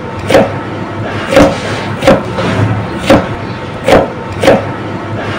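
A knife or cleaver chopping onto a thick wooden chopping block: six sharp strokes at about one a second, unevenly spaced.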